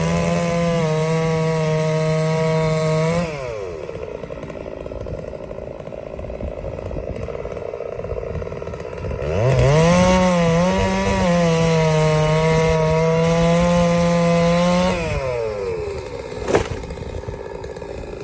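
Two-stroke chainsaw held at full throttle cutting wood, dropping back toward idle after about three seconds, then opening up again for another five seconds before easing off. A single sharp crack comes near the end.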